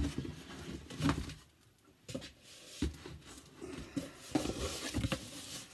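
Vinyl records in their sleeves being handled and sorted through in a cardboard box: irregular knocks and sliding, rustling sounds, busier in the second half.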